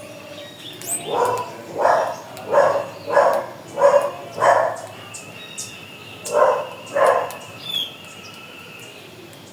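A bird giving a series of short, loud calls: six in quick, even succession, then a pause and two more. Faint high chirps and a thin steady high tone run underneath.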